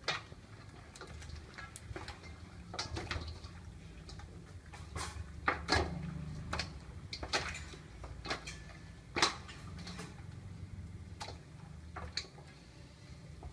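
Hands turning and mixing pieces of goose meat in a steel pot: irregular clicks and knocks as meat and bones hit the pot's side, the sharpest one about nine seconds in.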